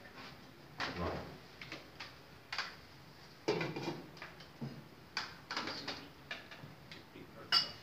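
Tableware handled during a meal: scattered clinks and knocks of plates, metal serving-dish lids and cutlery, about a dozen short sounds, the sharpest just before the end.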